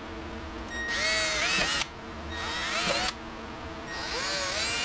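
Power drill with a 3/16-inch bit boring the marked holes for a light bracket, run in three bursts: two short ones and a longer one starting near the end, its motor pitch rising and falling as the bit cuts.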